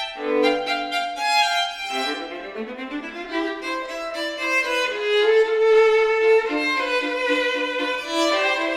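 Violin and viola playing a classical duet: sustained bowed notes in two parts, the lower line climbing a scale about two seconds in.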